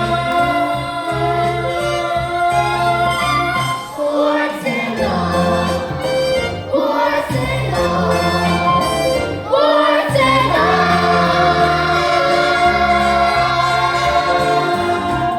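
Musical-theatre song: several voices singing together in held notes over instrumental accompaniment.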